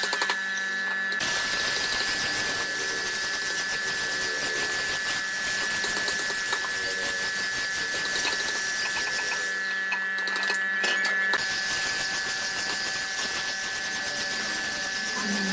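A small electric power tool running steadily with a constant whine and a fast fine rattle.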